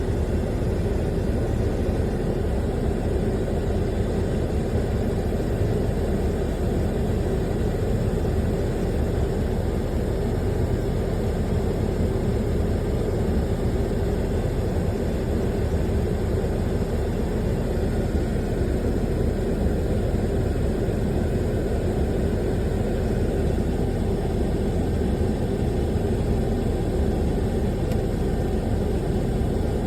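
Steady engine and road noise inside a moving vehicle, a constant low drone without change.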